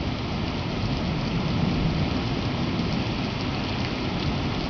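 Rain falling steadily on a wet paved street, an even hiss without breaks.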